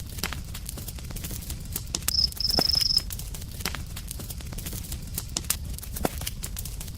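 Campfire burning, with irregular sharp crackles and pops over a low steady rumble. About two seconds in, a single high, thin trill lasts just under a second.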